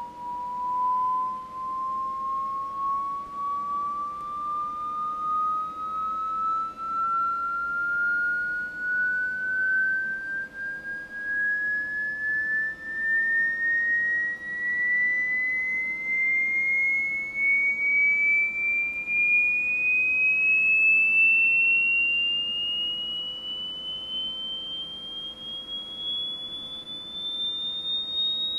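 A pure sine-wave test tone played through speakers, sliding slowly and steadily up in pitch from just under 1,000 Hz to about 3,700 Hz as part of an audio frequency sweep.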